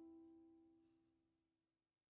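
Background music: a plucked-string note left ringing, fading out to silence about a second and a half in.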